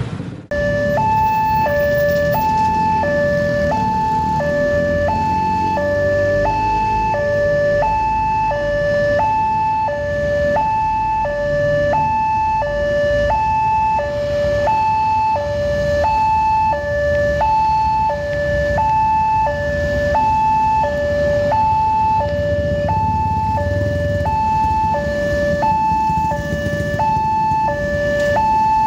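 Railway level-crossing warning alarm sounding a two-tone electronic signal: a lower and a higher tone alternate steadily, each held about half a second, warning that a train is approaching. Road traffic rumbles beneath it.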